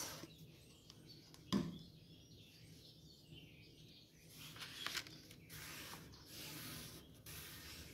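Quiet handling of card paper: hands pressing and smoothing a freshly glued fold, with a faint rustling hiss in the second half. There is a soft knock about a second and a half in.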